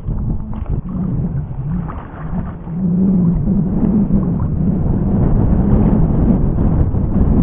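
A motor droning with a wavering pitch over rumbling noise, getting louder about three seconds in.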